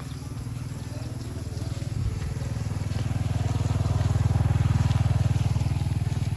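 Motorcycle engine running as it passes, a steady low pulsing drone that grows louder toward the middle and then eases slightly.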